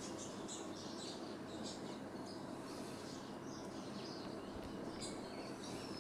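Faint, repeated high chirps from helmeted guineafowl chicks (keets) peeping, over a steady low background hiss.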